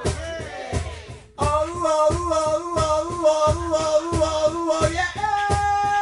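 Live harmonica in a neck holder, playing wavering chords over strummed acoustic and electric guitars keeping a steady beat. Near the end the harmonica holds one long chord.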